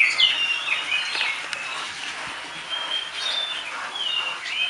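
Small birds chirping in short, quick sweeping notes: a burst right at the start, a few scattered chirps, then more chirping from about three seconds in.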